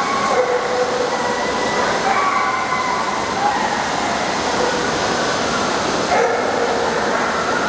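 Dogs whining in drawn-out pitched cries over the steady din of a large, crowded hall.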